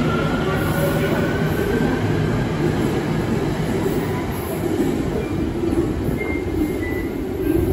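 Beijing Subway Line 4 train pulling out of the station: the traction motors whine, rising in pitch as it accelerates over a dense rumble of wheels on rail. The whine fades about two seconds in and the rumble thins as the train leaves.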